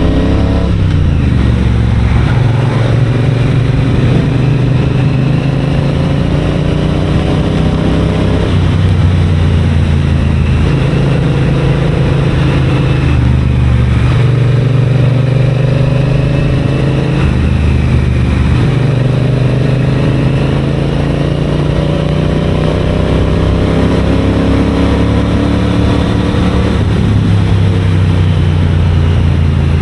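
Triumph Bonneville parallel-twin engine and exhaust under way. The engine note climbs slowly, then drops back about five times, with a steady rush of wind and road noise underneath.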